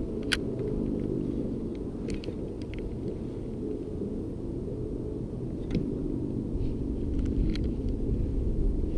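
Steady low wind rumble on the microphone over choppy water, with a few faint, short clicks scattered through it.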